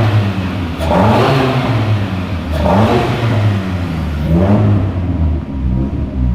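Turbocharged engine of a Nissan S13 free-revving with three blips of the throttle, each rising and falling in pitch over a steady run, through a home-made downpipe and exhaust. It is a freshly installed engine on one of its first runs, not yet on boost.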